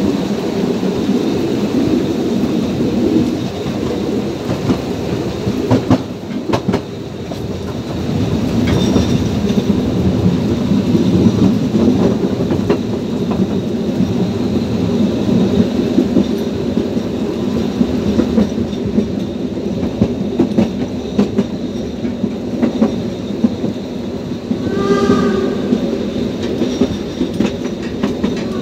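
Narrow-gauge steam train running, heard from an open carriage: a steady rumble with wheels clicking over the rail joints. Near the end the steam locomotive's whistle sounds one short blast.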